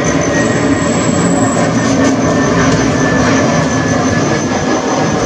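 Jet airliner's engines running: a steady, loud roar with thin high whines running through it.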